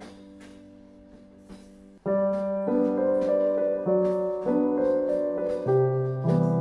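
Background music: a soft, held passage, then about two seconds in a louder piano melody comes in.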